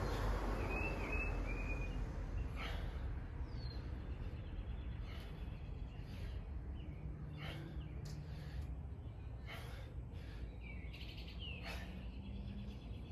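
Small-town street ambience: broad traffic noise fades over the first few seconds, leaving a steady low rumble. A few short bird chirps sound over it, along with soft short rushes of noise every two seconds or so.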